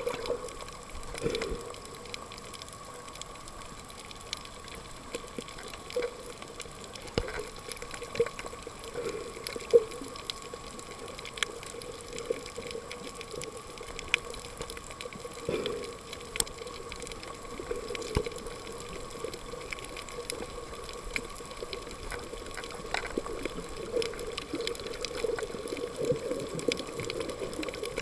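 Underwater sound recorded with the camera submerged: a steady hum at two pitches runs under scattered sharp clicks and crackles, with brief swells in the hum every few seconds.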